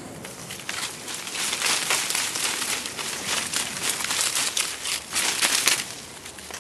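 Dry fallen leaves rustling and crunching, a dense run of crackles that starts about half a second in and eases off near the end.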